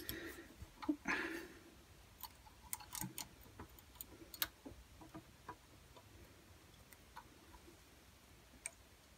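Faint, scattered metal clicks and ticks as small long-nose pliers hook the governor spring onto the carburettor throttle linkage of a Honda GX120 engine, a few separate clicks over several seconds.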